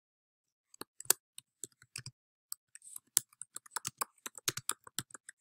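Typing on a computer keyboard: a quick, irregular run of key clicks, starting about a second in.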